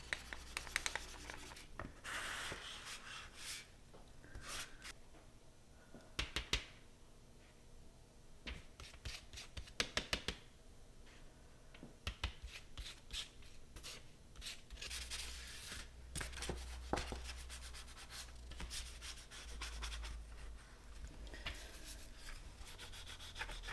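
Quiet scraping and tapping of a palette knife mixing paint on a palette, then the rub of a wide flat brush stroking paint across paper, over and over.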